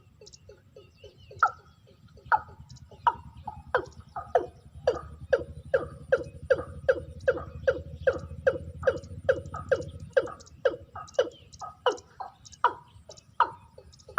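Watercock calling: a long series of short notes, each dropping slightly in pitch, coming faster to about three a second in the middle and spacing out again near the end.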